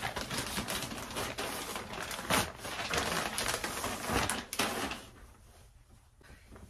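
Thin plastic poly bag crinkling and rustling as a folded hoodie is pulled out of it, a dense crackle of many small clicks that dies down about five seconds in.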